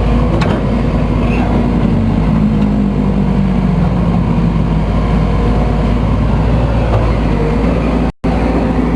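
Case CX210B excavator's diesel engine and hydraulic main pump running steadily, with no growling noise from the pump: the pump growl is cured after the main pump was stripped and reassembled. The sound cuts out for a moment near the end.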